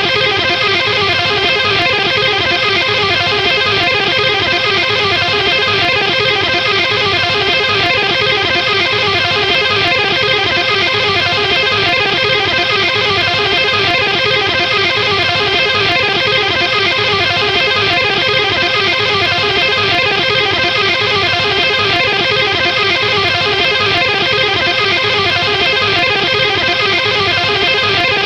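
Guitar strumming a rock chord fast and continuously, at an even level without a break.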